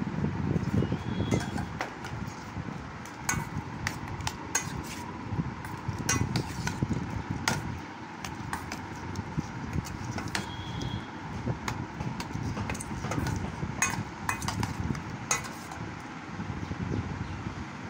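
Metal spoon clinking against a stainless steel bowl as papaya pieces are tossed: sharp, irregular clinks over a steady low background rumble.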